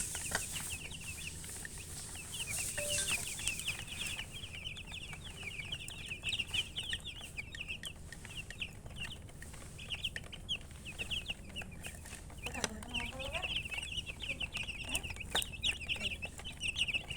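A brood of baby chicks peeping: many short, high chirps overlapping, thinning out in the middle and thickening again near the end. About twelve seconds in, a lower call briefly sounds under them.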